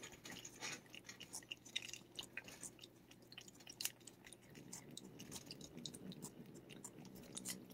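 A cat licking a lickable paste treat from a squeeze tube: faint wet smacking and tongue clicks in quick, irregular succession.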